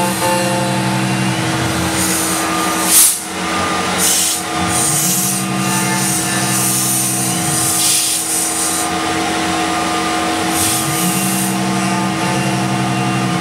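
CNC milling machine cutting a pine block with an end mill. The spindle runs with a steady tone, while the axis motors whine in a pitch that glides up, holds for a few seconds and drops back down, three times as the tool moves. A brief loud burst of noise about three seconds in.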